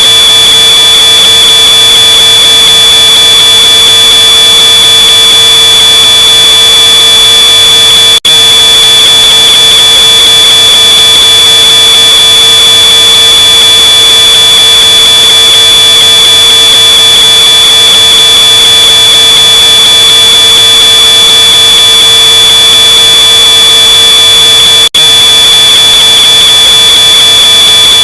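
Smoke alarm's piezo horn sounding one continuous high-pitched tone, boosted so loud it is harshly distorted. The sound drops out for a split second twice, about eight seconds in and near the end.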